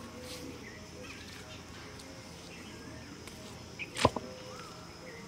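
Quiet outdoor pond-side ambience with faint, scattered high chirps, broken about four seconds in by a single sharp knock or snap.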